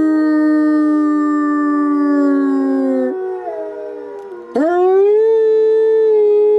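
Gray wolf howling: a long howl that slowly falls in pitch and breaks off about three seconds in, then after a short dip a new howl swoops sharply upward and holds a steady note.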